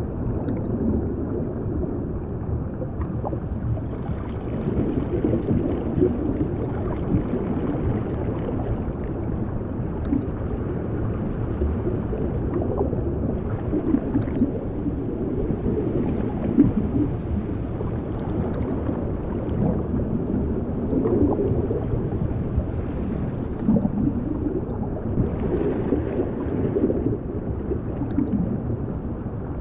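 Underwater bubbling and gurgling, heard muffled and low as if from beneath the surface, a drowning sound effect. It runs as a steady rumble with brief swells every few seconds.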